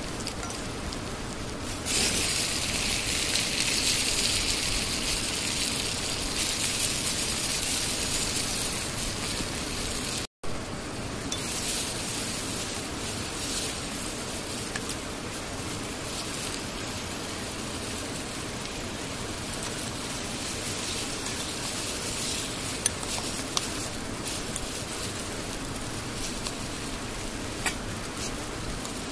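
Food sizzling in a pan over a campfire, with the wood fire crackling. Louder and hissier for the first ten seconds, then it cuts out for an instant and goes on steadier, with a few sharp crackles in the later part.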